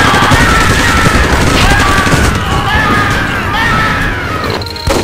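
Battle sound effects: a dense, loud din of crashes and bangs with voices shouting over it. It drops out briefly just before the end.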